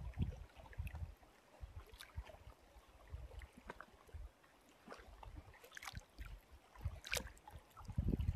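Choppy lake water lapping and slapping against the hull of a small boat: irregular low thumps, with a few sharper splashes about two, six and seven seconds in.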